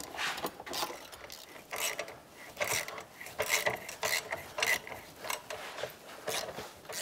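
Hand ratchet wrench clicking in short, irregular runs of strokes as a bolt is turned.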